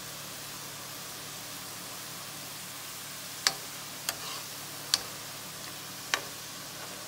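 Sliced onions deep-frying in hot oil in a kadhai, a steady sizzling hiss as they start turning golden. Four sharp clicks come in the second half.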